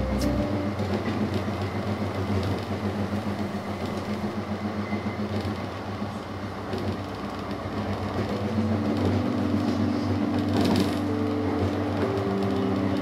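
Tram running at speed, heard from inside the car: a steady noise of the wheels running on the rails, easing a little about halfway through.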